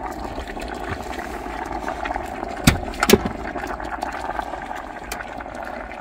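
Small electric tea kettle with its water at a rolling boil, bubbling steadily. Two sharp knocks come about halfway through.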